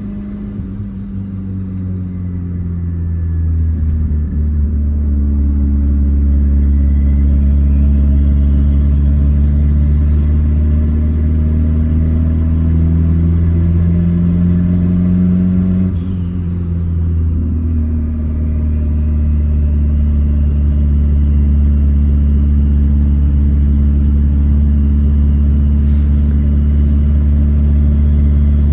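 Turbocharged, carburetted VW AP 1.8 four-cylinder engine of a square-body Gol pulling under load, its note climbing slowly with a faint rising whine above it. About halfway through it drops suddenly, as at a gear change, then climbs again.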